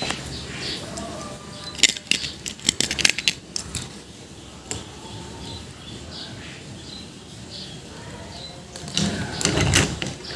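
Sharp clicks and rattles, a quick cluster about two seconds in and another louder burst near the end, typical of small hard objects being handled.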